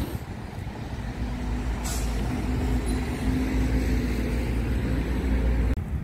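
Low rumble of a heavy road vehicle passing, with a steady droning hum through the middle; the sound changes abruptly near the end.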